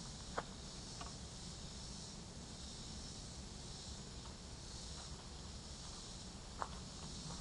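Steady insect chorus in summer woodland, a high even hiss that swells and fades slowly, over a low rumble. A few sharp clicks from the walker on the trail, the loudest just after the start and near the end.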